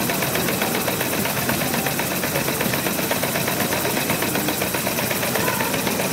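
Live-steam model locomotive with a vertical boiler running fast with its driving wheels spinning in place, giving a rapid, even mechanical beat.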